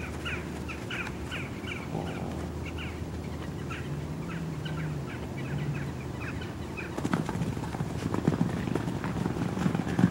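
Small birds chirping over and over through the first half. From about seven seconds in, the irregular dull thuds of horses' hooves as they trot and canter loose on arena sand.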